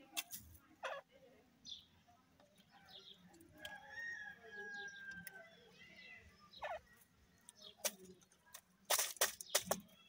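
Francolins giving faint, soft short calls and a thin drawn-out note, with sharp clicks or taps about a second in, near seven seconds, and a loudest cluster near the end.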